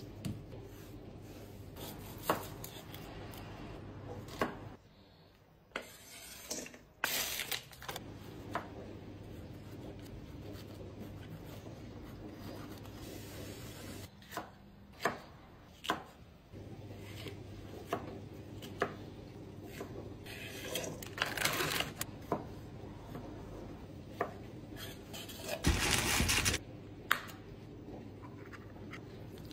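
Knife chopping vegetables on a bamboo cutting board: scattered knocks over a steady low hum. Near the end a ring-pull can is torn open in a brief loud ripping scrape.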